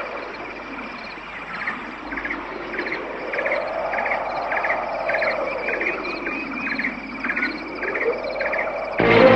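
Evenly spaced short high chirps, two to three a second, over slow rising and falling tones. About nine seconds in, a vehicle engine cuts in loudly.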